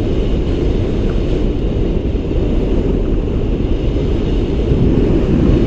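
Steady rush of airflow buffeting the microphone on a hang glider in flight: a loud, even, low noise with no engine note in it.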